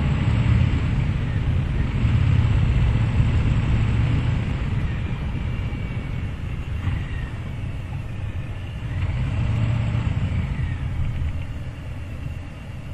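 Harley-Davidson Sport Glide's Milwaukee-Eight 107 V-twin running under way, a steady low rumble mixed with wind rush, heard from a microphone inside the rider's helmet. The level eases off over the last few seconds as the bike slows.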